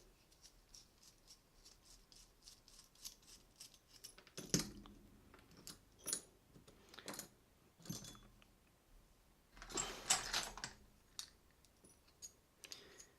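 Light metallic clicks and taps as a key-in-knob lock cylinder is taken apart with a cap tool, with a few sharper clicks spaced about a second apart and a short clatter of small metal parts around ten seconds in.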